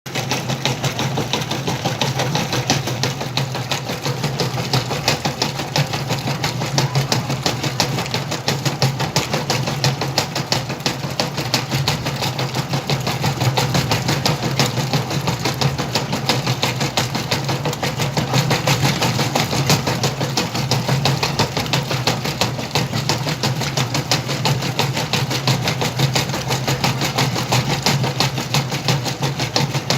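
Whirlpool washing machine running a wash cycle loaded with jeans: a steady motor hum with a fast, even clatter.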